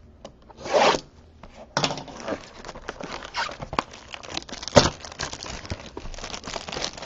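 A trading card box's cardboard and wrapping being torn open by hand: a short rip just before a second in, then about five seconds of continuous crackling tearing and crinkling, with a sharp snap about two-thirds of the way through.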